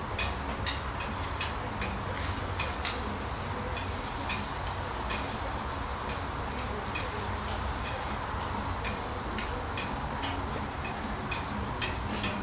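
Metal spatulas tapping and scraping on a stainless-steel teppanyaki griddle plate as sliced vegetables are chopped and turned, in irregular clicks over a steady low sizzle.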